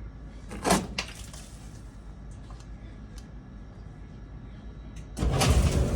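A few faint clicks, then about five seconds in a frozen Maytag commercial electric dryer starts up: its motor and drum begin running with a sudden, loud, low noise.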